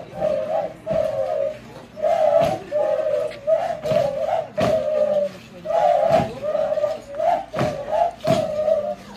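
Flute-like wind instruments playing a repeated phrase of short breathy notes for the dabucuri dance, with sharp knocks from the dancers' stamping every second or so.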